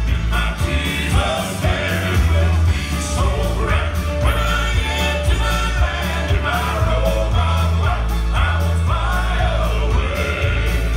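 Male southern gospel quartet singing in four-part harmony through microphones, with keyboard accompaniment and a heavy, steadily moving bass line underneath.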